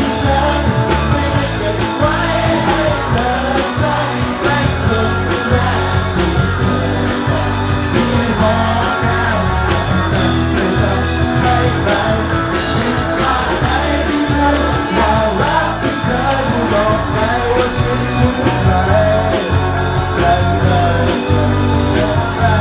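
Rock music with a singing voice.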